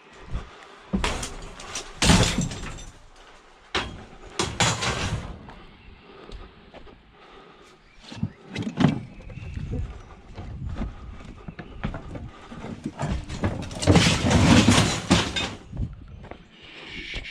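Irregular knocks and clattering of hard objects being handled and dropped, with a few loud bangs in the first five seconds and a longer clatter about fourteen seconds in.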